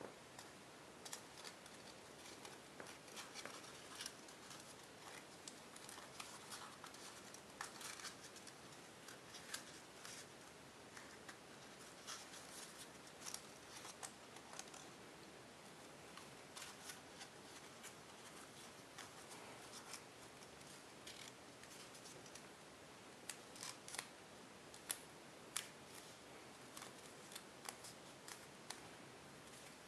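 Faint, irregular crackling and rustling of tissue-foil origami paper being folded and creased by hand, with a few sharper crackles near the end.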